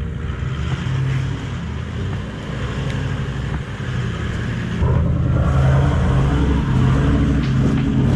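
Toyota LandCruiser 70-series four-wheel drive's engine working under load as it crawls up a rocky off-road climb. It gets louder about five seconds in as more throttle is applied.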